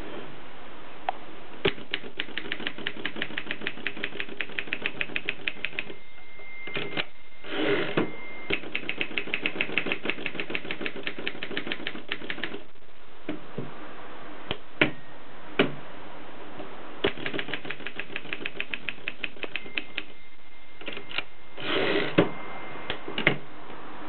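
Mercedes 3 manual typewriter being typed on: fast runs of keystrikes at about eight a second, with a few slower single strokes. Twice a thin ringing tone rises and a louder sweep comes with it, typical of the end-of-line bell and the carriage being returned.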